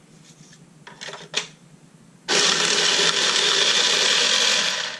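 Battery-powered automatic playing card shuffler running: its motor whirs steadily as it feeds the cards from both trays through, starting suddenly a little over two seconds in and stopping just before the end. A couple of light clicks of cards being handled come about a second in.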